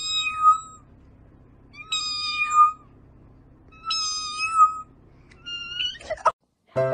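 A cat meowing three times, about two seconds apart, each call a drawn-out meow. A shorter, higher meow rises near the end and is followed by a quick swish.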